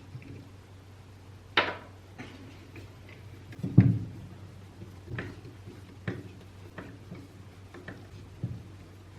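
Irregular clicks and knocks of small hard parts being handled and set down, about eight in all, the loudest a low thump near the middle, over a steady low hum.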